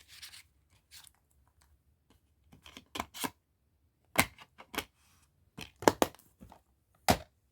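Plastic DVD case being handled, opened and shut: a scatter of sharp clicks and snaps, loudest about six seconds in.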